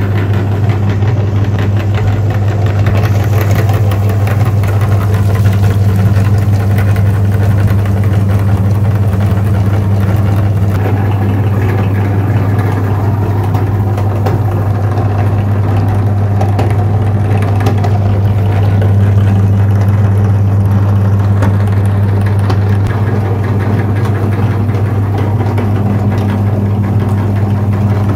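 A motor running with a steady, unchanging low hum.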